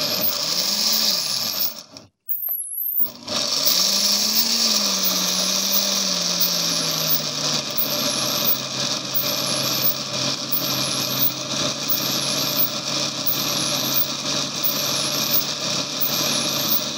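Oster countertop blender running, churning soaked sea moss with water and herb powders into a gel. The motor stops briefly about two seconds in, then starts again; its hum climbs and then settles lower, and it runs steadily for the rest of the time.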